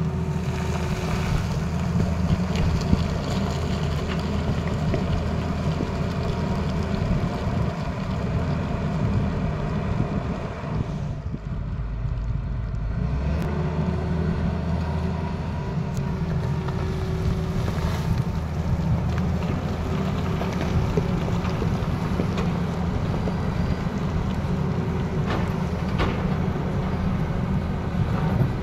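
Diesel engine of a Tata Hitachi Zaxis crawler excavator running steadily under load while it digs, a low rumble that dips briefly near the middle. A couple of sharp knocks come through later on.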